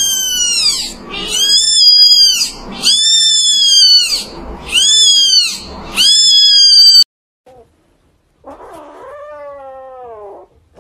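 Newborn kitten crying loudly: five high-pitched mews, each rising then falling in pitch, ending abruptly about seven seconds in. Near the end comes a quieter, lower-pitched cat cry that arches up and down.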